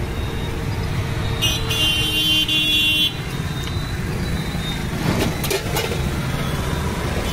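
Street traffic rumbling, with a vehicle horn honking for about a second and a half, starting about a second and a half in. A few sharp clicks come around the middle.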